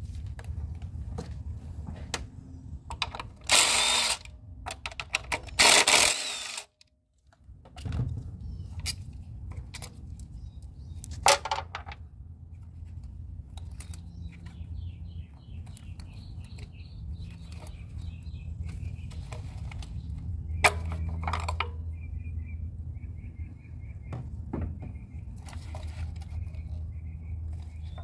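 Two short bursts of a power tool a few seconds in, then scattered clicks and knocks of hand work as bolts and brackets over the ignition coil packs are undone.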